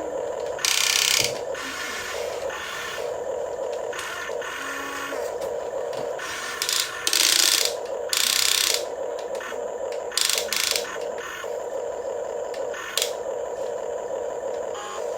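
Small electric motors and gearboxes of a radio-controlled toy excavator whining steadily as the arm and bucket work, the drone rising and falling as functions start and stop. Several short, louder rasping bursts break in, about a second in, twice around seven to nine seconds, near ten seconds and near thirteen seconds.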